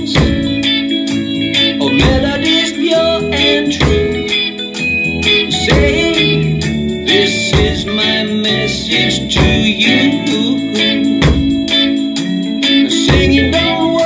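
Acoustic drum kit played with sticks in a steady reggae groove, along to a backing track with sustained pitched instruments.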